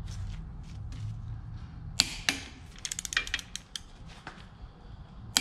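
Torque wrench on connecting rod bolts being taken to a final 65 foot-pounds: one sharp click about two seconds in, then a quick run of ratchet clicks, and another sharp click near the end.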